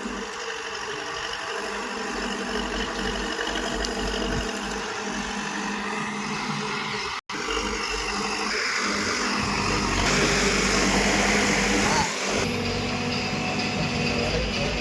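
Engine of a tractor or bulldozer running steadily under work. There is a brief cut-out about seven seconds in and a rising whine near the end.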